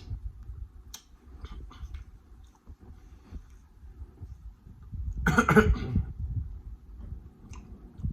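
Mouth noises of eating close to the microphone: a few small clicks and smacks, then about five seconds in a loud cough-like vocal burst from the eater that lasts about a second.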